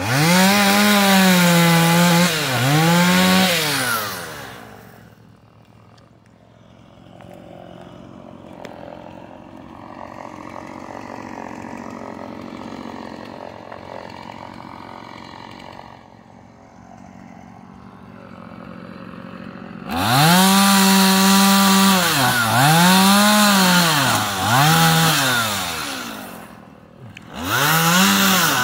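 Petrol chainsaw cutting through a fallen tree limb, revved hard in spells of a few seconds with its pitch rising and sagging several times in each spell. It runs much quieter for about fifteen seconds in the middle, then is revved hard twice more near the end.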